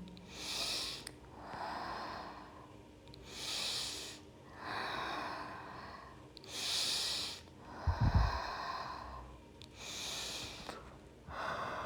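Slow, deep yoga breathing close to the microphone: about eight drawn-out breaths in and out, each lasting a second or so with short gaps between. A low thump about eight seconds in.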